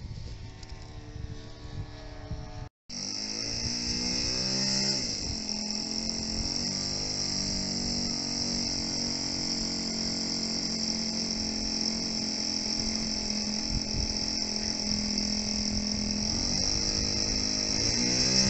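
A short dropout about three seconds in, then an RC tow plane's engine running at idle on the ground, its pitch dipping a little and rising again near the end. A steady high buzz of insects runs underneath.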